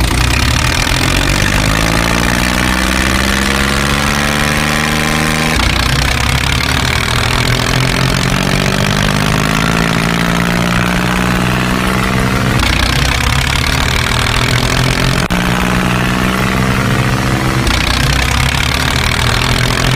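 Tractor diesel engine sound effect, running and revving with a slowly rising pitch. It changes abruptly about five and a half, twelve and a half and seventeen and a half seconds in, as if separate engine clips were spliced together.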